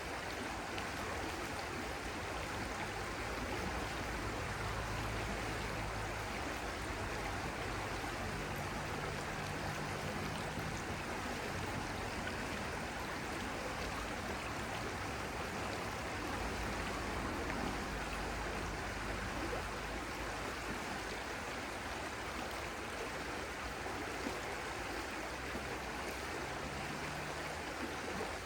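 Stream water flowing and rushing steadily.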